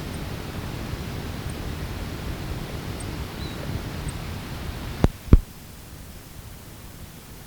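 Faint, very short, high-pitched call notes of an ash-breasted sierra finch parent, hard to hear over a low wind rumble on the field recording. About five seconds in come two sharp clicks, the loudest sounds, as the tape recorder is stopped, and the background then drops to a lower hiss.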